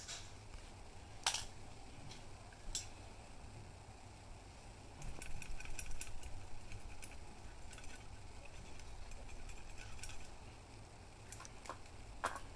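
Faint scattered clicks and scratching from hand work on a thin metal umbrella rib with a wooden-handled tool: two single clicks, then a run of small clicks and scrapes in the middle, and a few more clicks near the end.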